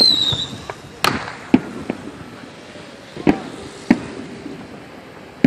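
Scattered fireworks and firecrackers going off at irregular intervals, about seven sharp bangs in a few seconds. At the start a short high whistle falls in pitch.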